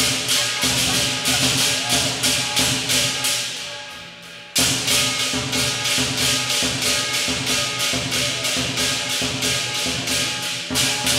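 Chinese lion dance percussion: a big drum and clashing hand cymbals beating a fast, steady rhythm of about three strokes a second, with a ringing tone underneath. About four seconds in the playing dies away briefly, then comes back with a loud crash.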